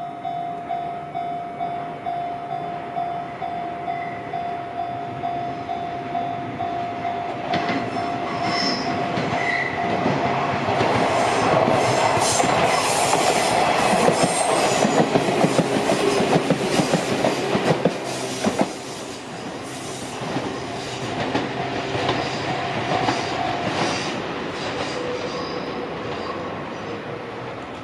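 Level-crossing warning bell dinging in a steady rhythm while a Sunzu Line electric train passes. The train's wheels clatter over the rail joints, building to a peak in the middle and then fading. The bell stops a few seconds before the end as the train moves away.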